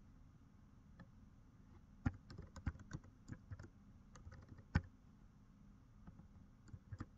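Typing on a computer keyboard: short, irregular runs of key clicks, with one louder keystroke near the middle.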